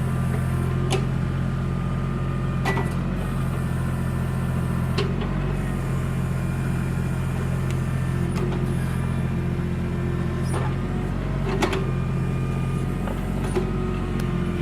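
Backhoe engine running steadily while digging, with a few sharp knocks from the working machine.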